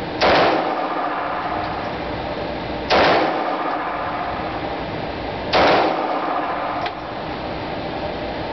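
Three single 9mm pistol shots from a Bersa Thunder Pro, about two and a half seconds apart, each ringing briefly off the concrete of an indoor range, over a steady background hiss.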